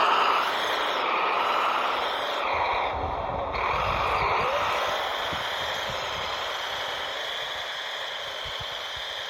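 Radio-controlled Kyosho Blizzard tracked vehicle running, its electric motor, gears and rubber tracks whirring steadily and slowly growing fainter.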